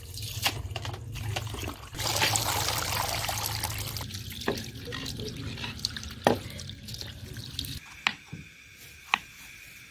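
A stream of water from a hose pipe pours and splashes into an aluminium pot of chopped spinach, rinsing the soil off the leaves. It is loudest from about two seconds in. Near the end come a couple of sharp knife taps on a wooden chopping board.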